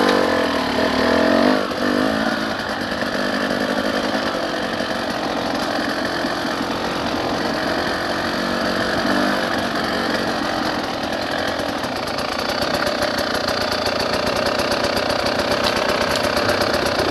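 Dirt bike engine running steadily while being ridden, its pitch rising and falling a little.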